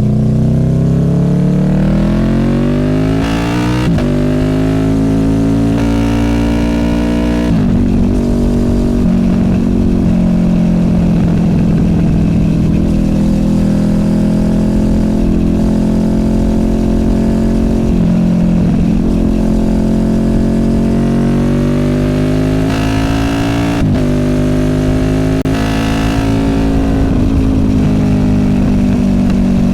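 Honda VFR800F's V4 VTEC engine through an SC Project Conic exhaust, pulling up through the gears. Pitch climbs and drops sharply at an upshift about 3.5 and 7.5 seconds in, then holds steady for a long cruise, then climbs again to another upshift in the last third.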